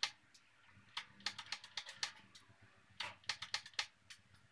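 Light metallic clicks and ticks, single and in quick runs of several a second, from a hand tool working the rear brake caliper's bleeder screw while the brakes are bled.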